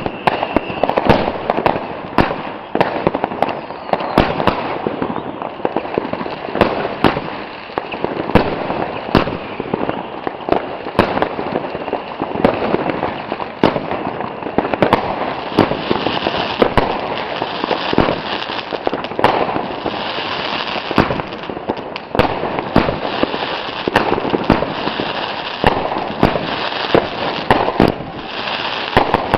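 Consumer firework batteries firing a dense, unbroken barrage: many sharp bangs a second over continuous crackling.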